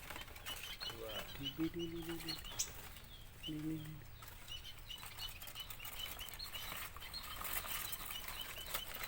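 Small birds in an aviary chirping in short, high notes again and again, with wings fluttering as birds fly about, the fluttering thickest near the end.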